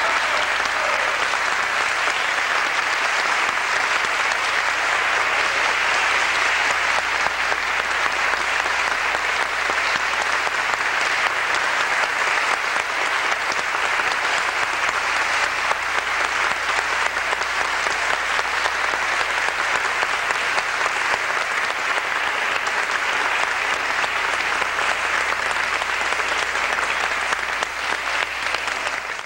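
A concert hall audience applauding steadily, thinning a little near the end.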